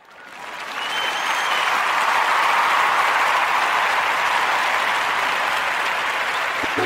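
Crowd applause fading in over about a second and then holding steady, with a brief high whistle about a second in.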